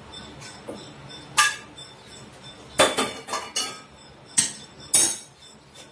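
Metal kitchen utensils clinking and knocking as a boiled herbal kadha is strained: several sharp, separate clinks spread over a few seconds.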